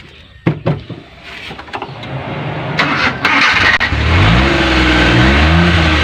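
Suzuki Multicab F6's small three-cylinder petrol engine being started: a couple of clicks, cranking, then it catches about three and a half seconds in. It revs up and settles into steady running, with a small dip in speed. It now runs because the leaking fuel hose that kept the fuel pump from drawing petrol has been replaced.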